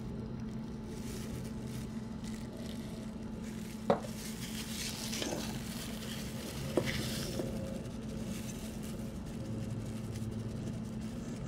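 A pastry brush and plastic-gloved hands working a chicken wing in a stainless steel mixing bowl: soft rustling and brushing, with two sharp taps on the bowl about four and seven seconds in, over a steady low hum.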